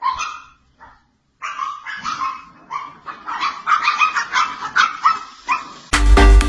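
A dog barking in short repeated yaps: a few barks, a brief pause about a second in, then a rapid run of about three barks a second. Near the end, music with a steady beat cuts in.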